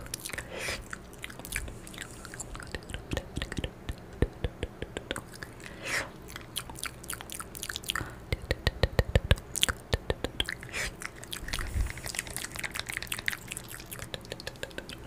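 Close-mic ASMR mouth sounds: wet lip smacks, tongue clicks and mock chewing as fingertips are brought to the mouth to 'eat' plucked-away energy. A dense, louder run of quick clicks comes about eight to nine seconds in.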